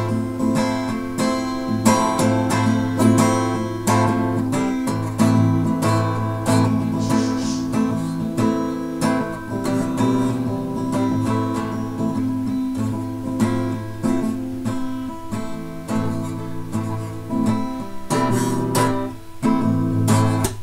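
Acoustic guitar strummed chords, played steadily with no singing, stopping suddenly at the end.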